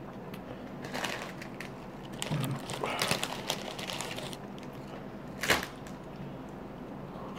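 Plastic chip bag crinkling as hands handle and dig into it: scattered small crackles, with one sharper crack about five and a half seconds in.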